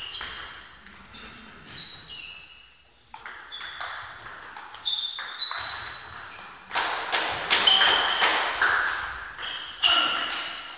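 Table tennis ball being hit back and forth in a rally, clicking off the bats and bouncing on the table, each hit a short high ping. There is a brief pause about three seconds in before play resumes.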